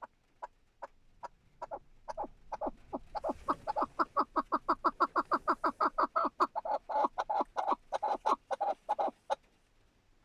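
Chukar partridge giving its clucking rally call: a series of short 'chuck' notes, spaced at first, then speeding up and growing louder into a fast run of about five a second, which stops suddenly near the end.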